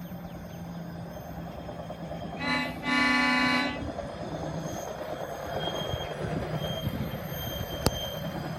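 Horn on a Norfolk Southern track maintenance truck sounding two blasts, a short one and then a longer one of nearly a second, about two and a half seconds in. Afterwards comes the rumble of the truck rolling along the rails, with a sharp click near the end.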